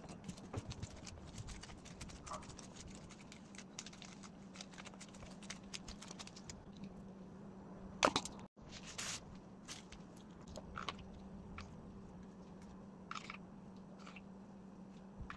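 Soft, irregular ticks and crackles of gloved fingers pressing sticky sushi rice onto a nori sheet on a plastic-wrapped bamboo mat, over a steady low hum. A sharper tap stands out about eight seconds in.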